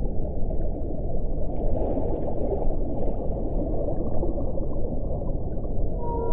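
Underwater ocean ambience: a steady, dense low rushing noise with no distinct whale call standing out.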